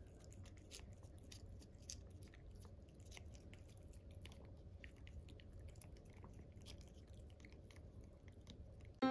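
Norwegian Forest Cat licking paste treat from a squeeze tube: faint, irregular wet licking and smacking clicks.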